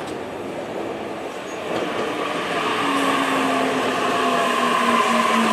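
Tokyu Ikegami Line electric train pulling into the platform, rumbling louder from about two seconds in. Its traction motors whine in several steady tones that slowly fall in pitch as it slows.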